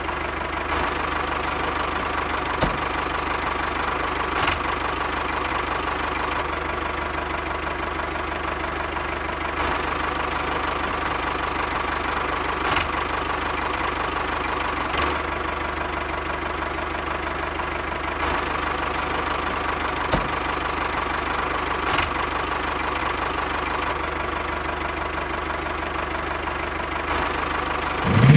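Miniature model tractor running steadily with an engine-like mechanical drone, with a few faint clicks along the way.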